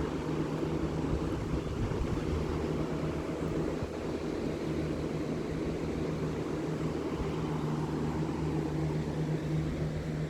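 Steady drone of a lawn mower engine running without a break, over the rush of the river.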